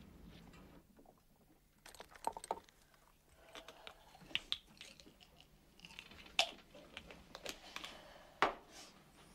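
Scattered small clicks, taps and clinks of small things being handled on a counter, irregular. The sharpest knocks come a little past the middle and near the end.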